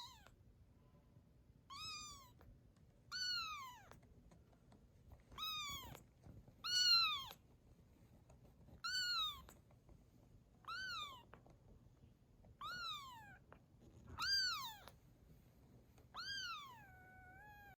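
A newborn kitten meowing, about nine high-pitched cries, each rising and then falling, one to two seconds apart.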